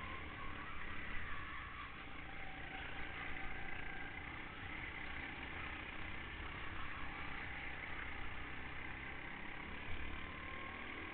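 Go-kart engine running at speed, heard from a camera mounted on the kart, with a steady drone whose pitch drifts slightly up and down.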